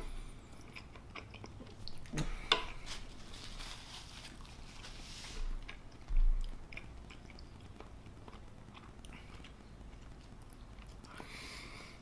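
Close-miked chewing of chili cheese fries, with wet mouth clicks and smacking. A dull low thump comes about six seconds in.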